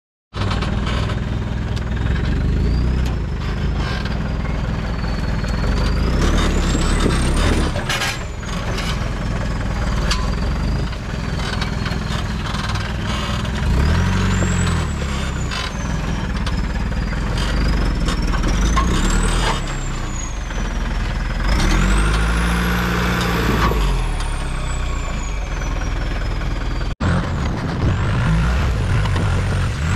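Off-road jeep's engine labouring and revving up and down as it crawls over rough ground, with a high whine that rises and falls with the revs. The sound drops out for an instant near the end.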